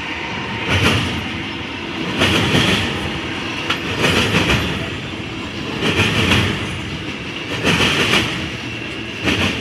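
Double-stack intermodal freight train rolling past, its well cars' wheels clattering on the rails over a steady rumble. A louder clatter comes around every two seconds as each car's wheels go by.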